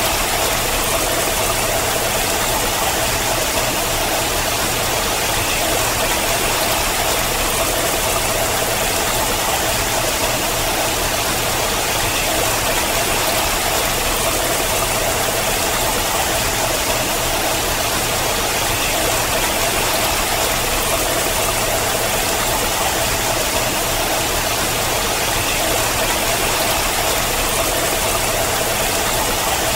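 Water falling in a thin sheet down a rock face: a steady, even rush of running water.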